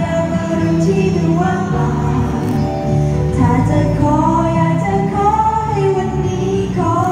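Female pop idol group singing a melody together over a pop backing track played through the stage speakers.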